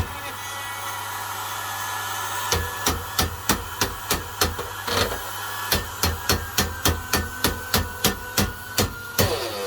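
Sewing machine motor run on 400 V, with a failed bearing: the motor hums with a thin whine that slowly falls in pitch, over sharp regular knocking about three times a second. The knocking pauses for a couple of seconds at the start, then resumes.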